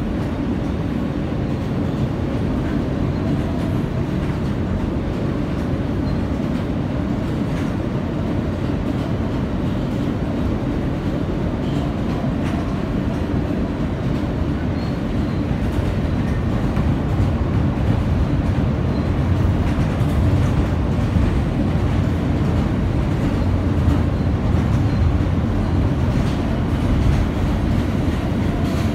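Steady rumble of an R160 subway car's wheels on the rails, heard from inside the car as it runs along the elevated track, growing a little louder in the second half.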